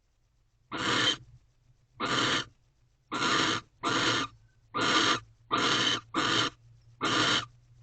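Barn owl giving eight harsh, hissing calls of about half a second each, several in quick pairs, over a faint steady low hum.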